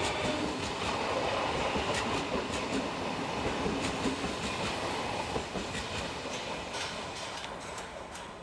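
Odakyu Line electric train passing over the level crossing: a steady rumble of wheels on rail with repeated clacks as the wheels cross rail joints. The sound fades away from about six seconds in as the train moves off.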